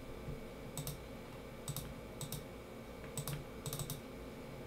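Faint, scattered clicks of a computer mouse, about eight in all, several coming in quick pairs like double-clicks, over a low steady room hum.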